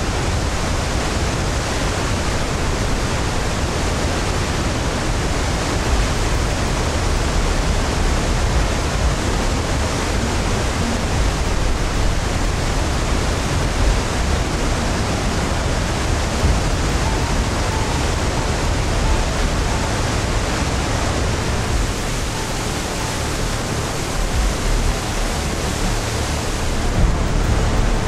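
Heavy water of Iguazu Falls pouring down in a steady, loud rush of white noise with a strong deep rumble underneath.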